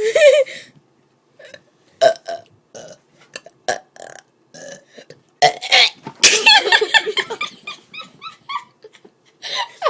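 A person burping, a run of separate belches with short silent gaps between them; the longest and loudest comes about five and a half seconds in.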